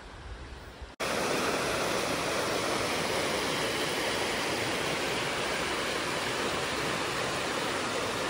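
Steady rush of fast-flowing water, cutting in abruptly and loud about a second in, after a second of fainter outdoor noise.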